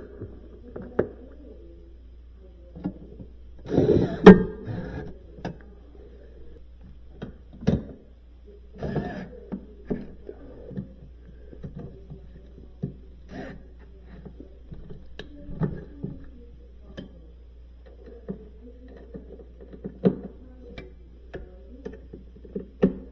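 Irregular clicks, knocks and rustles of hands and tools working on freezer parts, with a cluster of louder knocks about four seconds in, over a steady low hum.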